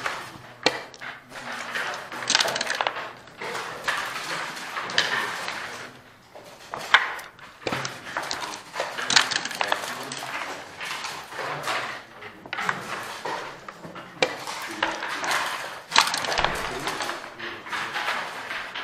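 Backgammon dice and checkers clacking on the board: a scatter of sharp clicks and knocks as the dice are thrown and the pieces moved.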